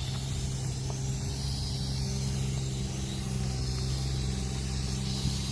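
Quadcopter drone's propellers giving a steady low hum, over an even hiss of wind.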